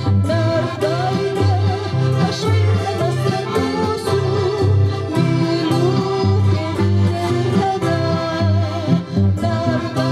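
Folk band playing a tune: hammered dulcimer struck with hammers and a button accordion over a steady repeating bass, with a singer's wavering voice above.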